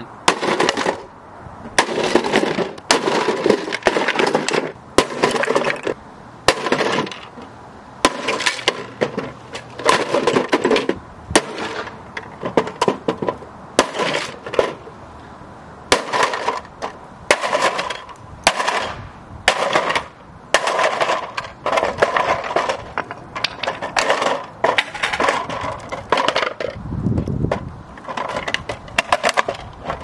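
Hammer blows repeatedly smashing a plastic toy washing machine, about one sharp hit a second, with plastic cracking and broken pieces clattering. Near the end the blows stop and a duller handling noise follows as the shattered casing is pulled apart.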